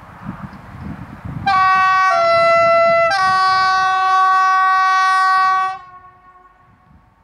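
Air horn of a PKP Cargo M62 'Gagar' diesel locomotive sounding for about four seconds, starting a second and a half in. A short higher note steps down to a slightly lower one, then returns to the higher note, which is held and cuts off near the end.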